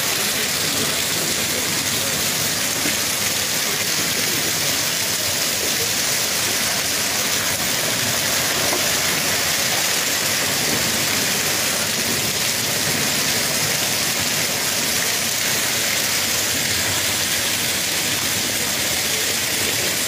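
Heavy hailstorm: hail and rain pelting down steadily as a dense, even hiss.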